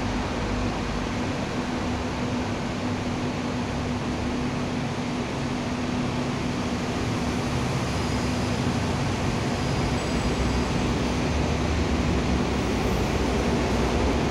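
Double-decker diesel buses running in a covered bus terminus: a steady engine rumble and hum under general traffic noise, growing a little louder near the end.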